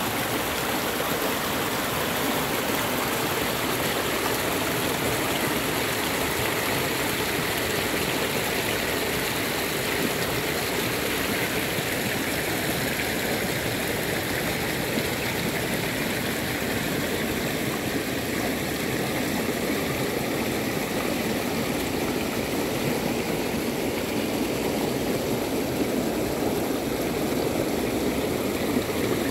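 Rain-swollen creek rushing and splashing over rocks, a steady, unbroken rush of water.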